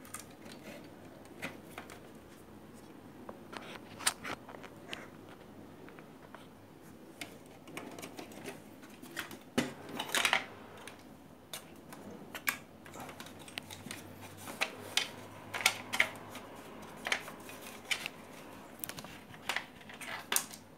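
Irregular clicks, taps and light rattles of hands handling a CRT television's circuit board and its wires, with a cluster of sharper clicks about halfway through and more toward the end.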